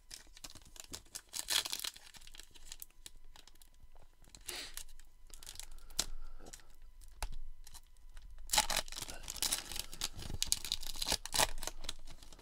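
Plastic foil trading-card pack wrapper being torn open and crinkled by hand, in several bursts of tearing and crackling, with the longest and loudest stretch near the end.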